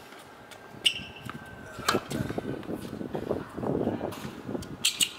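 Tennis rally on a hard court: a few sharp pops of a tennis ball struck by racket strings and bouncing, spaced about a second or more apart, over low background noise.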